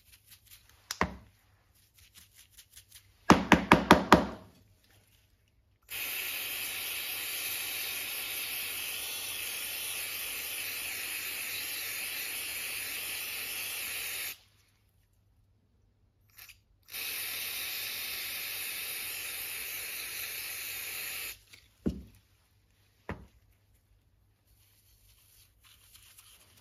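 Aerosol brake cleaner sprayed into an opened ratchet head in two long, steady hissing bursts, the first about eight seconds and the second about four seconds, flushing out old grease, dirt and rust. Before the spraying there is a second of rapid clicking, the loudest thing here, with a few single clicks around it.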